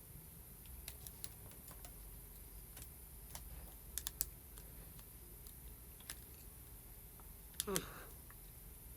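Faint, scattered small clicks and taps from handling a smartphone while fitting and clamping its newly glued screen, with a brief squeak near the end.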